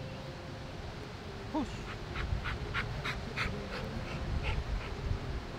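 Dog panting in quick, even breaths, about three a second, starting about two seconds in, after running to fetch a ball.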